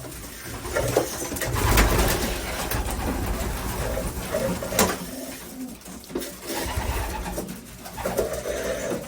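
Racing pigeons cooing repeatedly in a small loft, with scattered sharp clicks and knocks.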